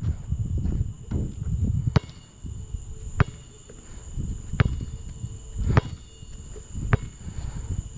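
A basketball bouncing on a hard court, five sharp bounces about a second apart, over the steady high chirring of crickets and a low rumble.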